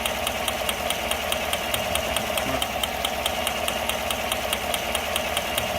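Engine idling with a sharp, rapid, even ticking, several ticks a second: the snap of the ignition spark jumping (arcing) outside its proper path, a fault in the ignition.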